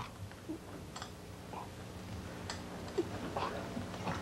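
Low steady hum with a few faint, scattered taps and knocks.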